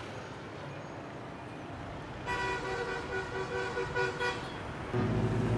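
Street traffic noise, then from about two seconds in a string of short vehicle horn toots for about two seconds. A steady low hum starts abruptly near the end.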